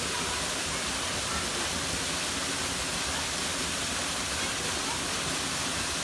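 Stream water tumbling over a waterfall: a steady, even rushing hiss.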